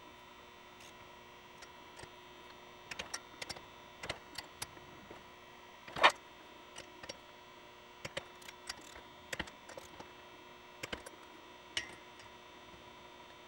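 Hand tools ticking and clicking while the cylinder head nuts are tightened: short runs of ratchet ticks and a single loud, sharp click about six seconds in, as the click-type torque wrench reaches its set torque. A faint steady hum runs underneath.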